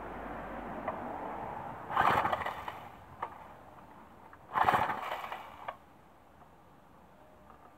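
Two pulls on the recoil starter cord of a Briggs & Stratton 375 Sprint four-stroke mower engine, about two and a half seconds apart, each a short rasp as the engine is cranked. The engine does not fire.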